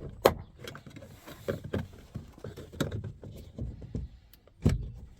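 Plastic trim on a Mk4 VW Golf rear door card being prised off: a series of irregular clicks and knocks as its clips let go. The sharpest comes about a quarter-second in and another near the end.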